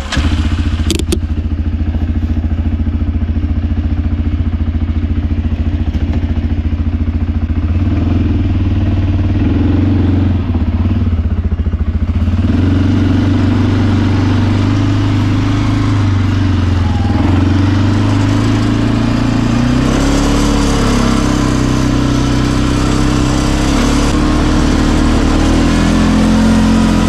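ATV engine running steadily at low revs, then changing pitch as the quad turns and rides off along a dirt track; from about twenty seconds in, a rushing noise from the ride joins the engine as it gathers speed.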